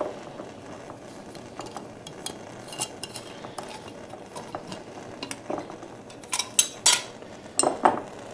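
Glass mason jar with a metal screw lid being handled: small clicks and scrapes as the lid is worked, then several sharper clinks of metal and glass near the end.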